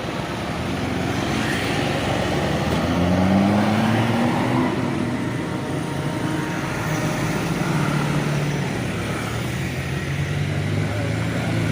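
Road traffic with motor vehicle engines passing close by. About three seconds in, an engine note rises in pitch as it speeds up, and a steady low engine hum runs through the second half.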